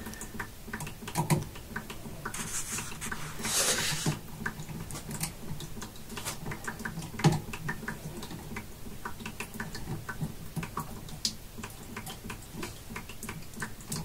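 Light, irregular clicks and taps of a screwdriver and hand tools working on the terminals of a well pump pressure switch, with a brief rustle about three seconds in. A water drip ticks in the background.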